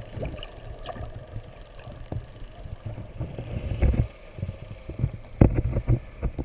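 Spinner dolphins whistling underwater: many short, high, rising whistles one after another, over a low rumble of water noise with irregular thumps, the loudest about four and five and a half seconds in.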